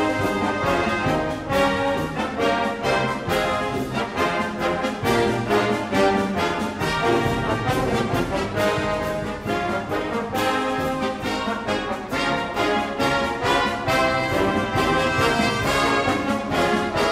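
Instrumental background music with brass and a steady beat.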